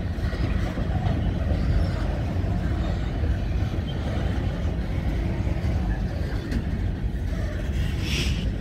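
Strong wind buffeting the microphone, a steady low rumble over the sound of a freight train in a rail yard, with a short hiss near the end.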